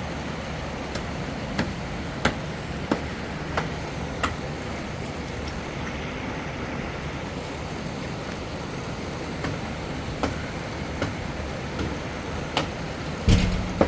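Steady rushing noise with a series of sharp knocks at irregular intervals, about every half second for a while, then a heavier thump near the end.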